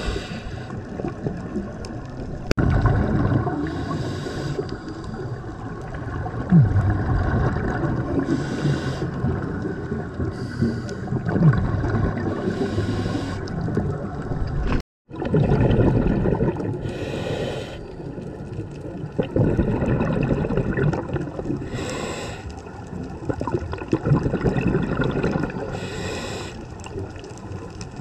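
Scuba diver breathing through a regulator underwater. A short hiss of inhalation comes about every four seconds, between longer bubbling, gurgling exhalations. The sound cuts out for a moment about halfway through.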